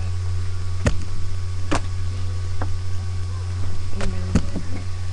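Steady low electrical hum on a webcam microphone, with several short sharp clicks spread through it.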